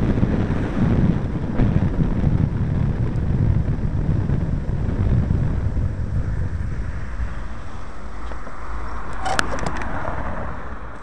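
Wind buffeting the microphone of a handlebar-mounted camera on a fast bicycle descent, a low rumbling rush that eases off as the bike slows over the last few seconds. A short cluster of sharp clicks comes near the end.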